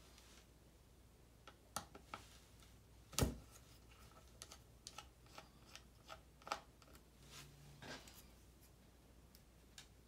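Faint, scattered clicks and taps of a small precision screwdriver working the tiny screws on the I/O board flex cable inside an opened 12-inch MacBook, with one louder knock about three seconds in.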